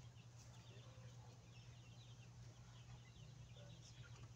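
Near-quiet backyard ambience: faint, rapid high bird chirps repeating over a steady low hum.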